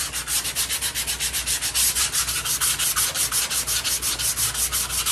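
Hand-sanding with 80-grit sandpaper on a foam sanding block, in quick, even back-and-forth strokes, several a second, over the epoxy-primed steel edge of a car door and quarter panel. The primer is being scuffed just enough to key the surface for body filler adhesion.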